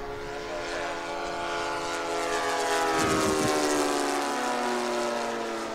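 Laser 160 inline twin four-stroke engine of a large radio-controlled P-51 Mustang making a pass. It grows louder to about three seconds in, then drops in pitch as the plane goes by.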